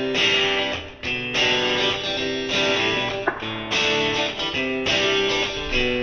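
Background music: a guitar playing a chord progression, with a new chord about every second.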